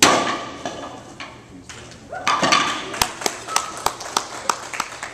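A loud crack of a breaking strike, with pieces clattering away over the next second. About two seconds in, a short burst of cheering, then scattered hand claps from a few onlookers.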